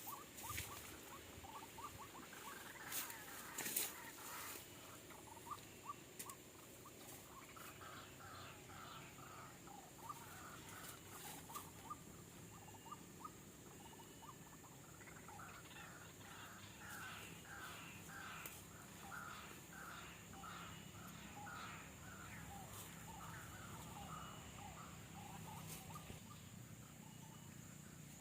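White-breasted waterhen (ruak-ruak) calling: a long run of short, evenly repeated croaking notes, several a second, starting about eight seconds in and fading near the end. A few sharp clicks sound early on.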